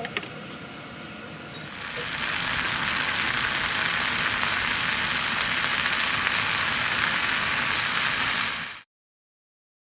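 Boiled spinach and garlic slices frying in oil in a pan: a steady sizzle that grows much louder about two seconds in, then cuts off abruptly near the end.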